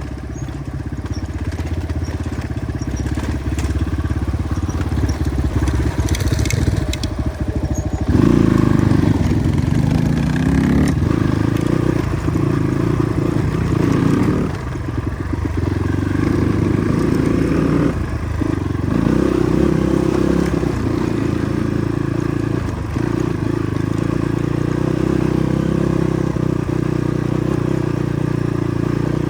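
Motorcycle engine running under load on a rough dirt track, with gravel crunching and parts rattling. The engine gets louder about a quarter of the way in, then eases off briefly a few times.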